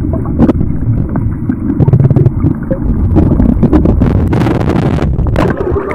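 Muffled underwater rumble of seawater moving against a phone held under the surface, with scattered knocks from handling. A brief hiss comes about four and a half seconds in.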